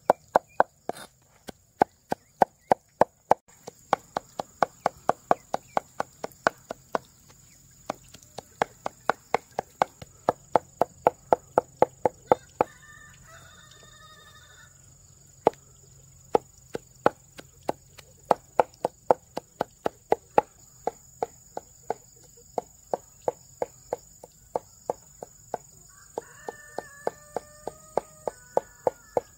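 A knife chopping rapidly, about four strokes a second, in runs with short pauses. Chickens call twice, about halfway through and near the end.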